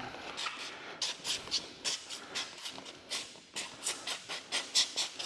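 Trigger spray bottle squeezed again and again, short hissing squirts of tack solution at about three or four a second.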